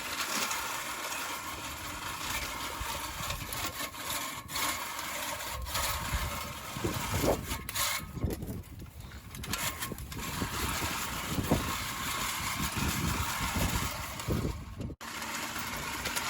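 Manual push reel lawnmower being pushed through grass, its spinning blades and wheels making a continuous whirring clatter as it cuts. The blades are dull and a bit rusted but still cutting grass.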